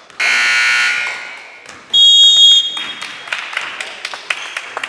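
A gym scoreboard buzzer sounds loudly for under a second and fades away, marking the clock running out. Then a referee's whistle blows once, shrill and about half a second long, followed by a few basketball bounces on the hardwood floor.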